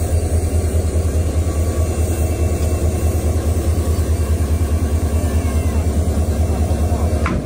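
Diesel locomotive engine idling with a steady, even low throb.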